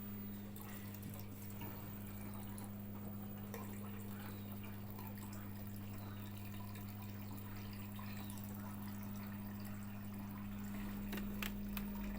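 LG washing machine running at the start of a spin cycle with its door locked: a steady low hum with faint trickling water, and a few light clicks near the end.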